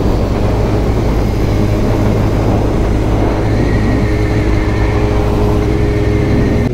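Suzuki sportbike riding at a steady cruise: a continuous engine note under heavy wind rush on the on-bike microphone.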